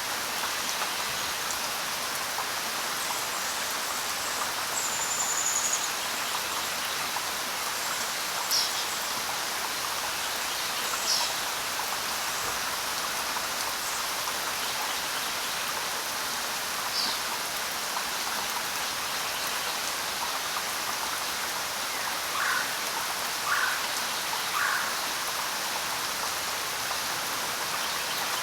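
Steady rain falling as an even hiss, with a few short high bird chirps scattered through it and three lower chirps close together near the end.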